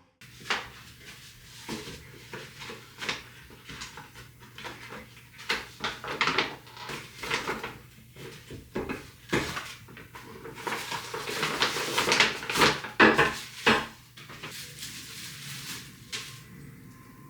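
Irregular clinks and clatter of dishes and utensils being handled, busiest and loudest a little past the middle.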